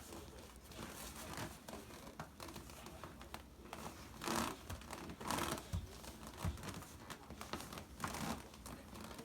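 Rustling and crinkling with scattered soft clicks, and three louder scraping rasps about four, five and eight seconds in.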